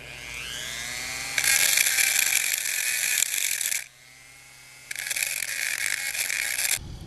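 A high-speed power tool spins up with a rising whine, then makes two loud rasping bursts of about two seconds each, with a short pause between them in which the motor whine falls.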